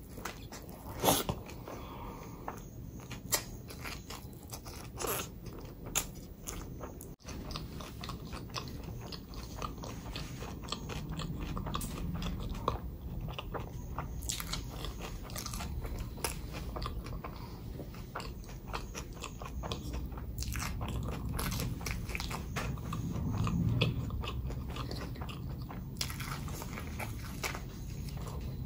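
Close-miked eating: bites and chewing, with many sharp crunches and clicks, a few separate ones in the first seconds, then steadier chewing for the rest.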